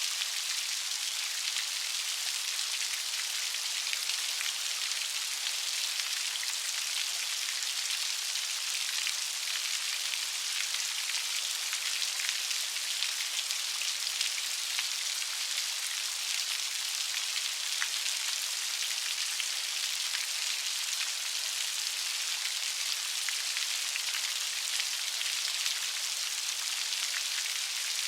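Steady light rain: a continuous hiss of many small drops pattering on a surface, with no thunder.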